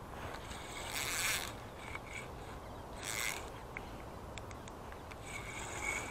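Spinning fishing reel being cranked in three bursts, its gears and line roller whirring as the line is wound in on a hooked fish.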